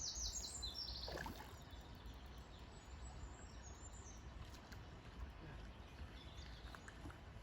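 Quiet lakeside ambience: a steady low rumble with small birds chirping quickly in about the first second, and fainter chirps a few seconds later.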